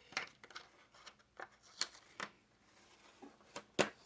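Hands handling Hot Wheels packaging: scattered light rustles and clicks of card and plastic, with a sharper click near the end.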